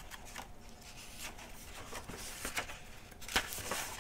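Paper page of a picture book being turned by hand: soft rustling and small clicks and taps, with the sharpest click about three and a half seconds in.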